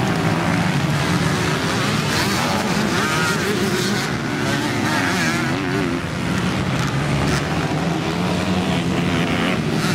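Several motocross dirt bike engines racing past, the pitch rising and falling as the riders work the throttle through the track.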